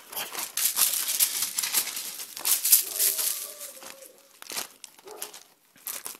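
Dense rustling and crackling of dry leaves and undergrowth being churned, as a Doberman scrabbles through it after a hedgehog. It is loudest over the first few seconds and thins to scattered crackles near the end.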